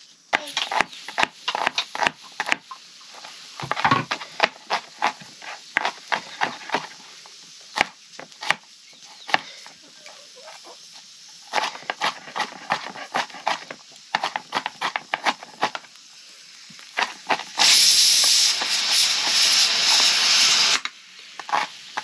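Cooking sounds: many irregular knocks and clicks, then a loud hiss lasting about three seconds that starts and cuts off abruptly near the end.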